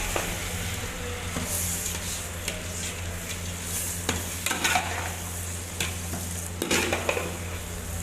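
Chicken parotta frying on a hot griddle: a steady sizzle, broken a few times by short sharp knocks, over a low steady hum.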